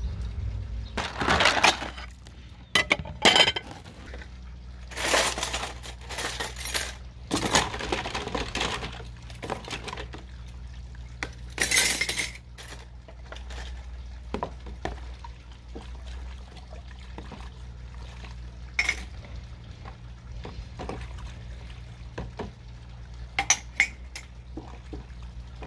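Dishes being washed by hand: cups, plates and cutlery clinking against each other, with water splashing and pouring over them and pieces set into a plastic dish rack. The clatter is busiest in the first half, then thins to scattered clinks, with a few sharp ones near the end.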